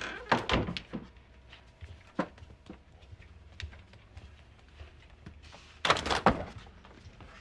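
Knocks and clunks of a door and objects being handled in a small room, with a cluster of sharp bangs about a second in, a single knock near two seconds, and a louder cluster near six seconds.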